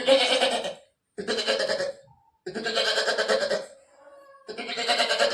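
Goat bleating four times, each bleat about a second long with short gaps between.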